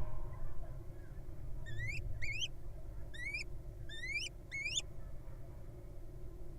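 Little owl giving five short, squeaky calls that each rise in pitch, in quick succession from about two seconds in, over a steady low hum.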